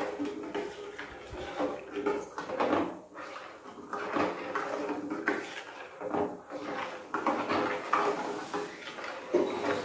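A metal spoon scraping and clinking against the sides and bottom of a stainless steel pan in quick, irregular strokes as warm milk is stirred continuously while milk powder is added, to keep lumps from forming.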